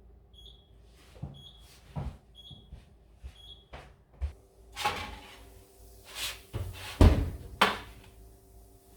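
An electronic appliance beeps four times, about once a second. After that come kitchen clatter and knocks of a door or cupboard being opened and shut, the loudest bang about seven seconds in.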